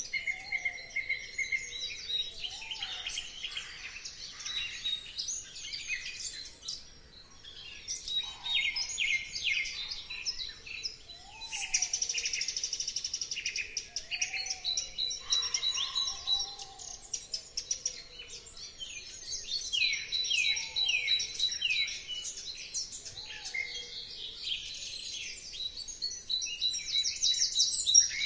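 Dawn chorus of several birds: dense overlapping chirps and trills, with a lower, short rising-and-falling call repeated every few seconds.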